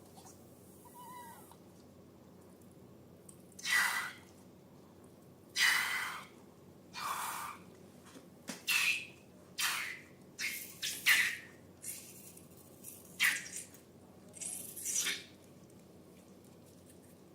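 Slime squelching as it is squeezed and pressed, with about ten short airy, squeaky bursts, several in quick succession a little after halfway.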